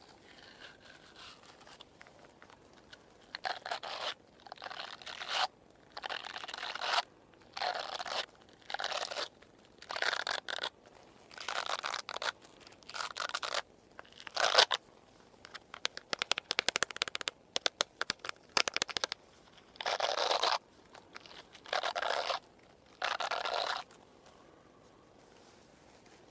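Brush strokes through hair, a series of separate swishing strokes about one to two seconds apart, with a quick run of scissor snips in the middle.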